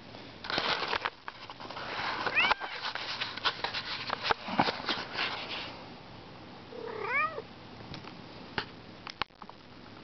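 A domestic cat meowing twice, a short call about two seconds in and another about seven seconds in, over rustling and clicks.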